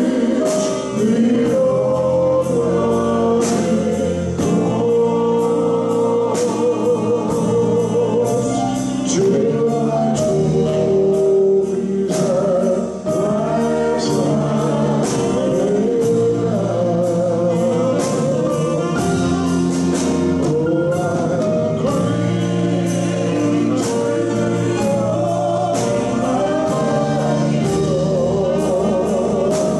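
Live gospel worship song: a man sings lead with vibrato over keyboard, piano and drums, with a woman singing backing. A steady beat of cymbal strikes runs underneath.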